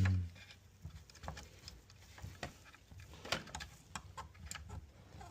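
Irregular light clicks and taps of small plastic and metal parts being handled and fitted together while a hot lather machine is reassembled.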